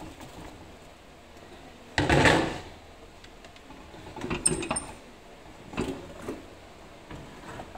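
Clear plastic film rustling and crinkling as it is pressed around a metal loaf tin, with a few light knocks against the tin. The loudest rustle is short, about two seconds in, and another comes in the middle.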